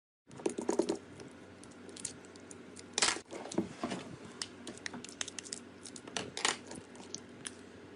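Crisp crackling and clicking of a crunchy material being cut, pressed or crushed by hand, starting suddenly after a brief silence, with denser loud crackles about a second in, around three seconds in and near six and a half seconds in.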